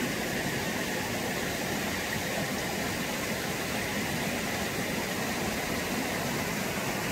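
Seasonal monsoon stream rushing down from the hills through undergrowth: a steady rush of running water that sounds just like rain falling.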